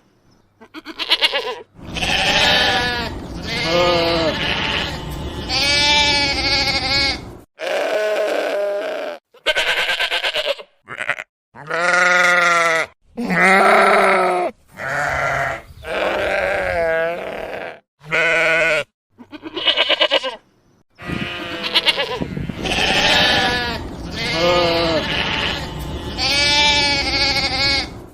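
Sheep bleating: a long series of separate baas one after another, several with a quavering, wavering pitch.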